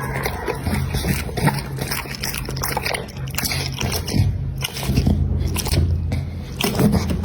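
American Pocket Bully dog chewing and crunching food, with many irregular sharp bites.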